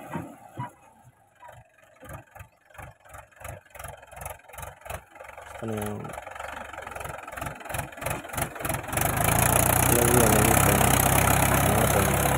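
Diesel tractor engine pulling a disc plough through soil as it comes closer. At first it is faint, uneven puffs that come faster and faster, then from about nine seconds in it runs loud and steady.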